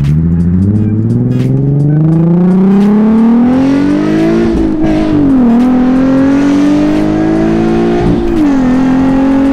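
Nissan 370Z's V6 through a Tomei titanium cat-back exhaust, heard from inside the cabin as the car accelerates hard. The note climbs steadily in pitch, drops sharply at an upshift about five seconds in, climbs again, and drops at a second upshift near the end.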